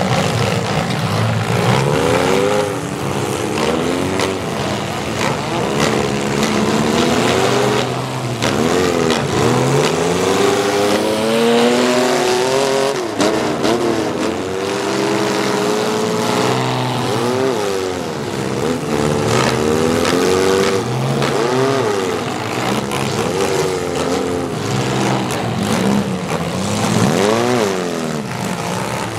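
Several demolition-derby cars' engines revving through open exhaust stacks, many pitches rising and falling over one another without a break. Occasional sharp knocks of cars hitting one another sound over them.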